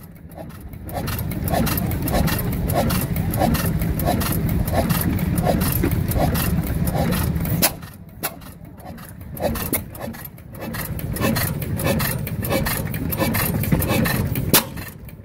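6 hp Witte sideshaft hit-and-miss engine running, with a steady train of regular firing beats and clicking from its valve and igniter gear. The firing drops away for about two seconds around the middle as it coasts on a miss cycle, then picks up again.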